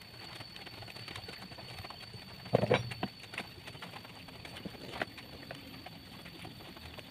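Scattered light clicks and knocks of wooden and metal parts being handled on a homemade wooden sharpening-machine linkage, with a louder clatter about two and a half seconds in and another knock about five seconds in.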